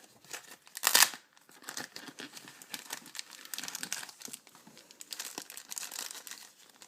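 Packaging being handled, crinkling and rustling in irregular crackles, with a louder crackle about a second in.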